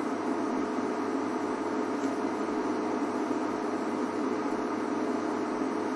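A steady hum with hiss, unchanging throughout, with no distinct events.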